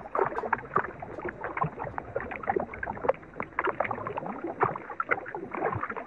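Water splashing and gurgling: a dense run of small, irregular splashes and clicks.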